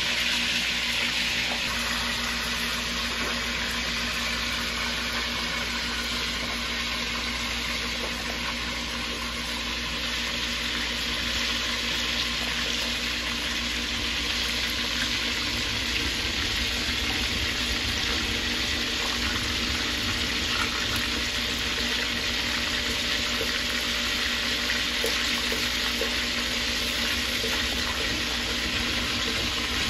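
Small whole mojarra fish frying in hot oil in a clay cazuela: a steady sizzle.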